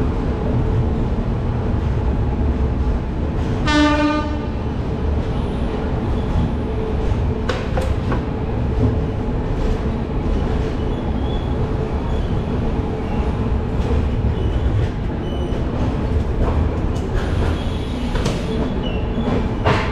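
Express passenger train running, a steady rumble of wheels on the rails heard from aboard, with a few sharp knocks. A short horn blast sounds about four seconds in.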